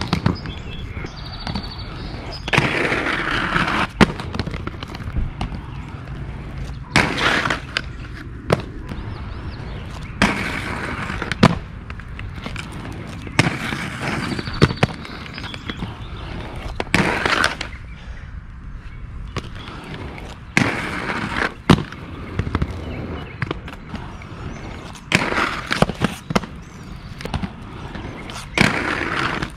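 Aggressive inline skates rolling over rough concrete and grinding a crunchy concrete park ledge, the frames and soul plates scraping along it for a second or two at a time. This happens about eight times, with sharp clacks as the skates hit the ledge and land back on the pavement.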